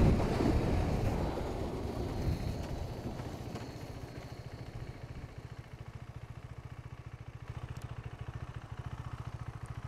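Husqvarna Svartpilen 401's single-cylinder engine. Loud riding and wind noise dies away over the first few seconds, then the engine runs at a low idle with an even, rapid low pulse.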